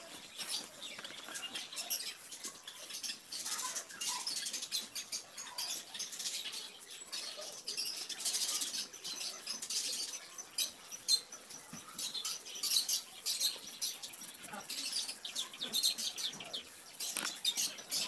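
Pencil scratching on drawing paper in quick, irregular short strokes.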